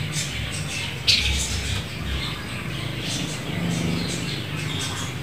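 Red-billed leiothrix (Pekin robin) calling: a string of short, high chirps with one sharp, louder call about a second in, over a low steady background rumble.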